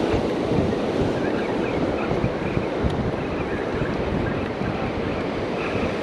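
Ocean surf washing onto the beach, with wind buffeting the microphone in a steady low rumble.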